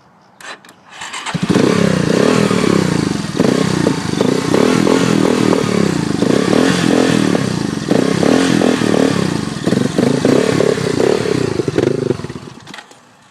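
Small ATV engine catching about a second in after a few clicks, running and revving loudly for about ten seconds, then cutting out near the end.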